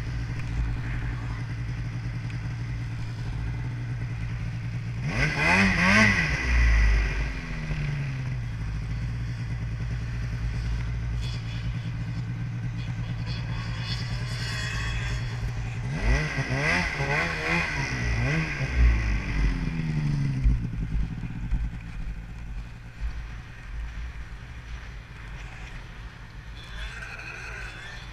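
Snowmobile engine running at a steady low pitch, revving up and back down twice: once about five seconds in, and again in a longer spell from about sixteen to twenty seconds in.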